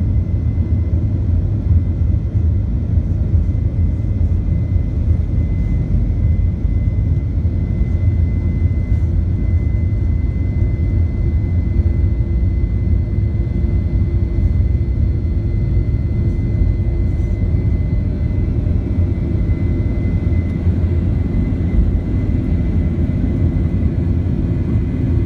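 Boeing 737-800's CFM56-7B jet engines at takeoff thrust, heard from inside the cabin during the takeoff roll: a deep, steady rumble with a thin high whine over it. A lower hum comes in about ten seconds in and strengthens toward liftoff.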